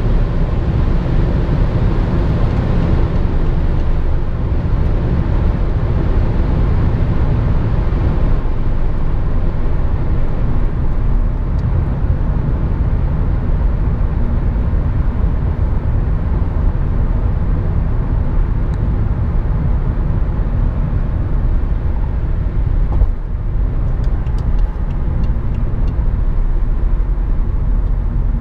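Steady cabin drone of a 2012 BMW 535i (F10) cruising at motorway speed: tyre and wind noise with its engine running under it, holding an even level throughout.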